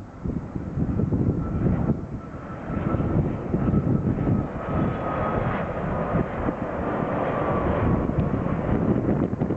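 Airliner passing by: a steady engine rumble with a thin whine that slowly falls a little in pitch.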